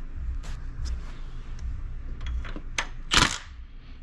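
Hand tools clicking and clinking against metal, a few scattered clicks with one louder, sharp clank a little after three seconds in.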